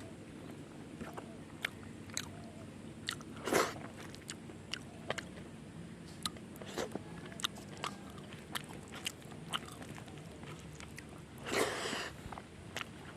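A person eating close to the microphone: chewing and crunching on a meal of fish curry and fried taro stems, with many short, sharp mouth clicks and two louder smacks, one a few seconds in and one near the end.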